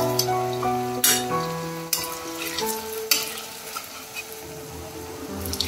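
Potato tikkis sizzling as they shallow-fry in hot oil in a kadai, with a metal spatula scraping and knocking against the pan a few times. A light background tune plays over it.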